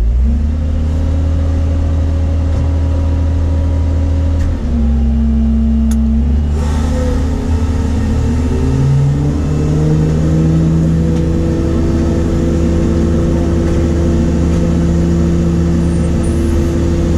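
New Holland grape harvester running, heard from inside the cab: a loud, steady engine and machinery drone whose pitch shifts a few times. About six seconds in, a band of hiss joins it.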